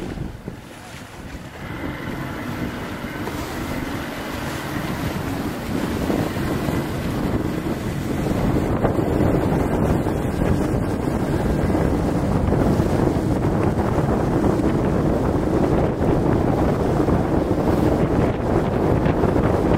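Wind buffeting the microphone over the rush of choppy water. It dips briefly near the start, then grows louder over the next several seconds and stays strong.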